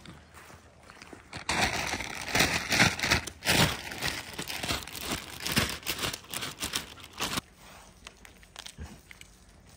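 Plastic bag of carrots crinkling and rustling loudly as it is shaken and the carrots are tipped out, starting about a second and a half in and stopping suddenly about two-thirds of the way through.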